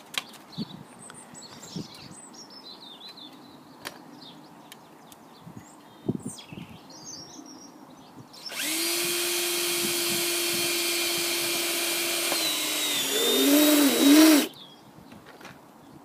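Power drill running for about six seconds to make a hole in a tyre, starting about halfway in. It holds a steady pitch, then wavers and gets louder as it works through the rubber before stopping suddenly. Birds chirp faintly before it.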